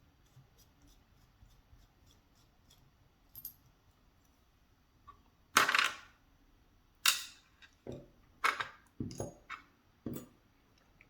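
Metal lock parts and tools being handled as the tailpiece of a lock is taken off: faint small clicks at first, then a run of sharp metallic clacks from about halfway in, the first the loudest.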